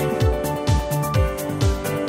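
Background music with a steady electronic beat: a punchy kick drum about twice a second under sustained synth notes and crisp percussion.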